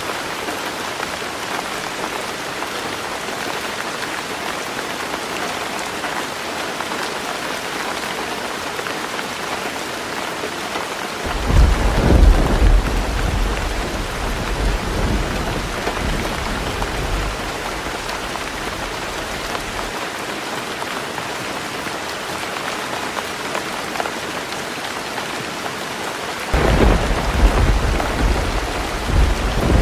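Heavy rain falling steadily on a roof, with two rolls of thunder: one breaks about eleven seconds in and rumbles away over several seconds, and another starts near the end.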